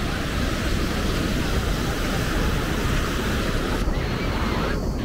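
Ocean surf breaking and washing up a sandy shore, with wind rumbling on the microphone.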